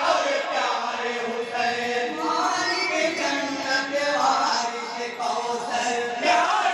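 A group of men chanting an Islamic devotional kalam (naat) together, their voices carrying on without a break.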